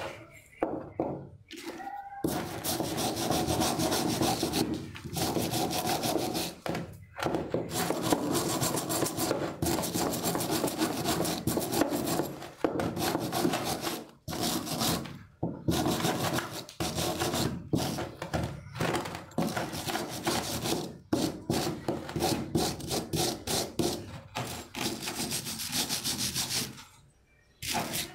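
A hand wire brush scrubbing flaking rust off an old iron hammer head, in runs of brisk back-and-forth strokes broken by short pauses.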